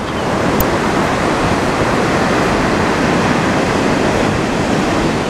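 Steady rush of ocean surf breaking on the beach, with wind on the microphone.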